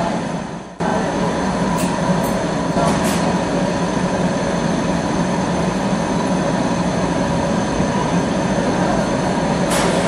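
Steady roar of a glassblowing studio's gas-fired furnace and burners, with a faint steady hum in it; it dips briefly just after the start. A few sharp clicks come through about two and three seconds in and again near the end.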